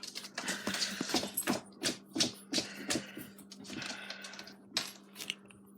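Rapid, irregular clicking and rustling from pug puppies moving and scrabbling about, over a steady low hum.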